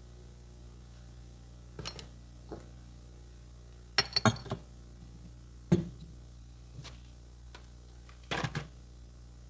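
A handful of sharp, irregularly spaced slaps of hands on skin during a massage, the loudest a quick double strike about four seconds in.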